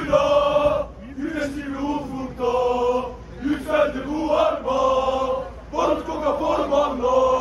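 A group of men chanting a football supporters' song in unison, unaccompanied, in loud sung phrases of about a second each with short breaks between them.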